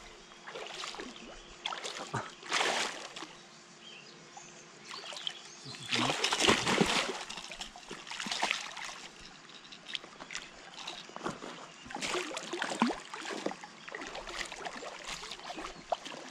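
A hooked wels catfish thrashing and splashing at the water's surface in irregular bursts, the biggest splash about six seconds in.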